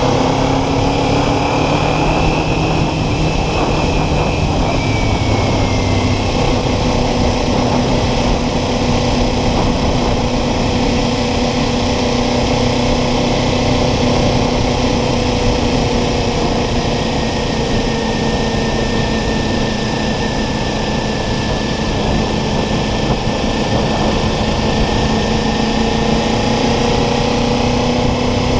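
Motorcycle engine running at a steady cruising speed over a constant rushing noise; its note eases down about five seconds in, then holds steady.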